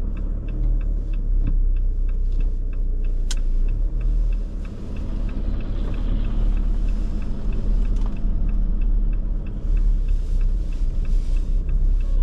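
A car driving, with a steady low rumble of engine and road noise. A light, regular ticking is heard through the first few seconds.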